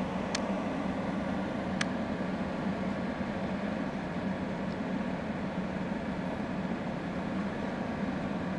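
Komatsu PC220LC-7 excavator's diesel engine running steadily at a low hum. Two sharp clicks about a second and a half apart come near the start.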